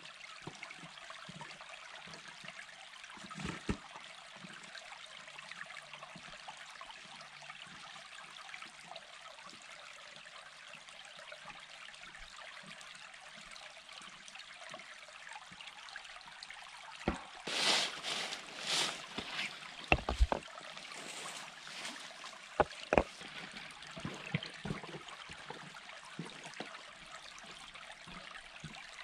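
Shallow creek trickling over stones, a steady water sound. Past the middle come louder bursts of rustling, then a knock with a dull thud and a few sharp clicks.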